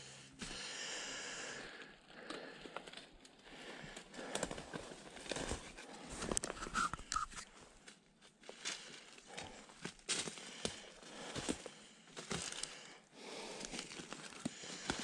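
Footsteps crunching through dry fallen leaves and twigs at an uneven walking pace.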